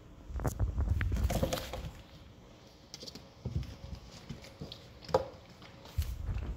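Five-week-old Portuguese Water Dog puppies scuffling in a whelping box, paws and claws scrabbling and tapping on its floor and sides. The busiest scrabbling comes early, and there is a sharp knock about five seconds in.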